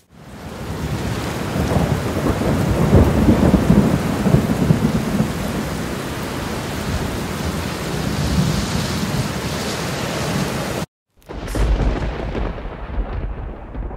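Heavy rain and rolling thunder: a loud, steady rain hiss with deep rumbles swelling a few seconds in. It cuts off abruptly about eleven seconds in, then a low rumble returns and fades out.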